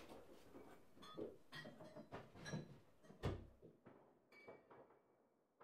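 Faint knocks and clinks of household things being handled in a small wooden room, with one dull thud about three seconds in.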